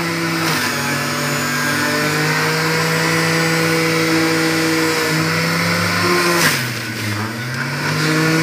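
Electric centrifugal juicer's motor running steadily while juicing beetroot, orange and green apple. Its hum shifts in pitch as produce is pressed down the feed chute, sagging clearly about six and a half seconds in and then picking back up.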